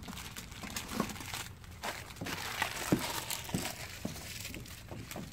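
Plastic instant-ramen packets crinkling as they are handled, opened and emptied into a pot.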